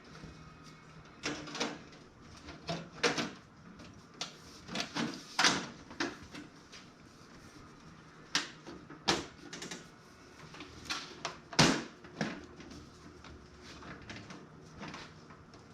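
Irregular knocks, clicks and brief scrapes of hands and tools working on a thin sheet-metal toaster oven casing being taken apart, with the loudest knock a little before twelve seconds in.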